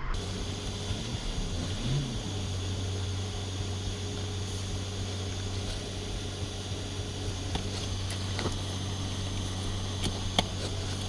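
Semi-truck's diesel engine running steadily, heard from inside the cab as the truck rolls slowly through a trailer yard. A few sharp clicks or rattles come in the last few seconds.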